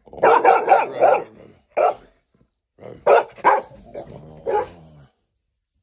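Dogs barking in play: a quick run of short barks, a single bark, then another run of barks about three seconds in.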